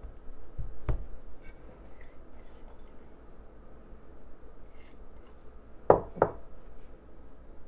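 Silicone spatula scraping and pressing soft, crumbly bath truffle mixture onto a pile on paper, with faint rubbing and scraping. There is a light knock about a second in and two sharp knocks close together about six seconds in, the loudest sounds.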